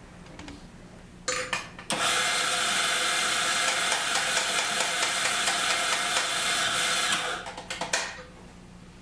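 Electric espresso grinder grinding coffee beans: a short spurt about a second in, then a steady grind of about five seconds that stops, followed by a few clicks and taps.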